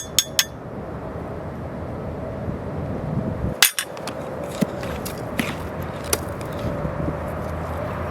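A few sharp knocks or clicks over a steady background hum, three quick ones near the start, a louder one a little past halfway, then scattered lighter clicks.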